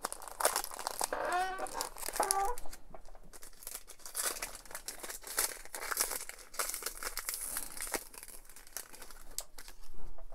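Baseball card pack wrapper crinkling and tearing as it is worked open by hand, a stubborn pack that resists opening. A brief wavering pitched sound comes about a second and a half in.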